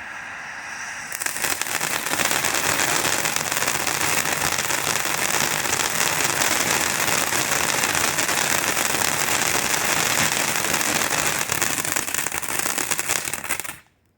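Firework fountain spraying, a loud, dense hissing crackle that grows louder about a second in and then cuts off suddenly near the end as the fountain burns out.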